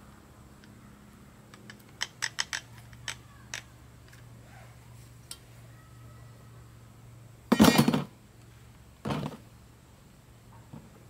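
Handling noise from a cordless angle grinder and a metal knife blade: a run of sharp clicks, then a loud clatter and a second, smaller knock as the tools are laid on a plastic tool case. The grinder's motor is not running.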